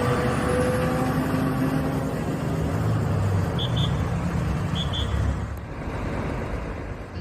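A motor vehicle's engine running steadily, like a truck, with two short double beeps about a second apart midway through.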